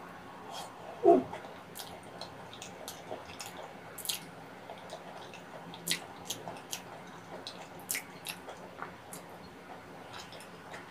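Close-miked wet chewing and mouth clicks from eating soft steamed kabocha squash with stretchy melted cheese: scattered smacks and sticky clicks throughout, with a brief hum about a second in.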